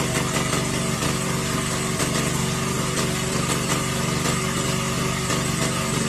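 Small engine running steadily at constant speed, with a fast even pulsing throb.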